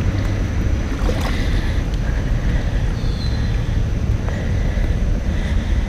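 Wind buffeting the microphone: a steady low rumble under a constant hiss.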